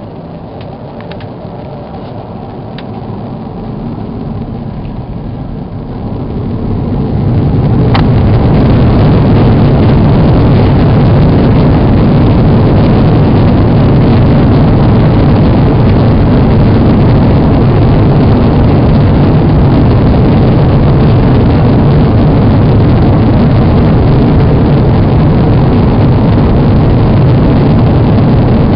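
Airbus A340-300's four CFM56 jet engines heard from inside the cabin, spooling up to take-off thrust: the sound builds gradually, grows much louder about seven seconds in, then holds as a steady loud rumble for the take-off run.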